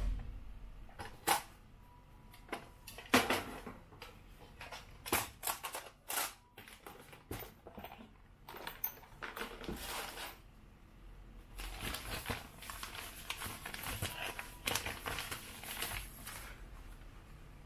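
Handling noises at a hobby bench: scattered sharp clicks and knocks of small parts being picked up and set down for the first ten seconds or so, then about five seconds of rustling.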